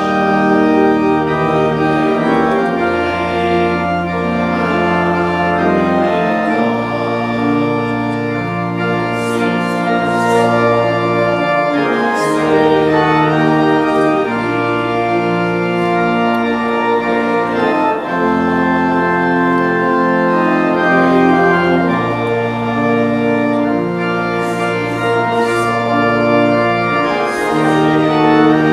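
Church organ playing slow, sustained chords over a bass line that moves to a new note every couple of seconds.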